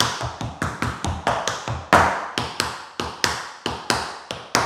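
Tap shoes striking the floor as a dancer performs a time step: a quick, uneven run of sharp metal taps from shuffles, flaps, toe drops and stamps, about four a second. The loudest tap comes about two seconds in.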